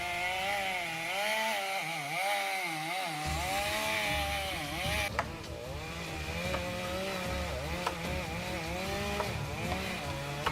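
Chainsaw running while cutting into a tree, its engine pitch wavering up and down throughout, with a few sharp clicks in the second half.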